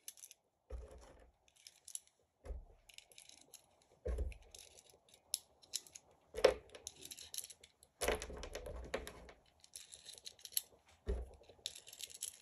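Small clicks and scrapes of .22 LR cartridges being pressed one by one into a Walther P22 pistol magazine, with several dull thumps in between.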